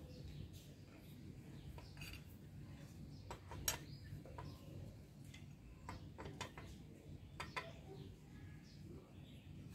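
A few scattered light metallic clicks and taps as a long steel rod is handled against a scooter engine's crankcase and stator, the sharpest about four seconds in, over a low steady background hum.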